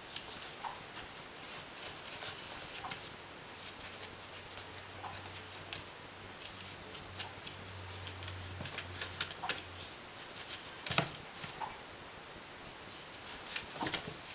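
Manx kitten's paws and claws scrabbling and scratching around in a bathroom sink strewn with potting mix: scattered light scratches and taps, the sharpest about eleven seconds in. A faint low hum runs under it through the middle.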